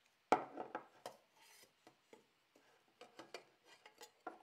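Clear ice sphere knocking inside a stainless steel tumbler and clinking into a glass as it is eased out: one sharp knock just after the start, then a run of small clicks and knocks.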